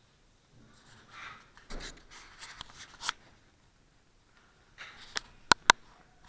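Rustling and knocking from the hand-held camera being handled and moved, then three sharp clicks near the end, the last two loudest.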